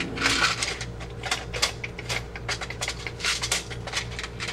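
Irregular clicking and light clattering of small hard parts being handled and sorted by hand, several clicks a second, over a steady low hum.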